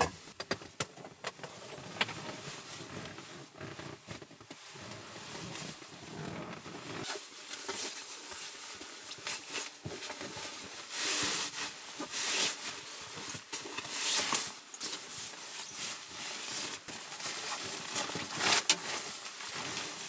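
Fabric rustling and rubbing as a cushion is handled and plumped and then a nylon sleeping bag is pulled out, with soft thumps. It gets busier in the second half, with several sharp swishes.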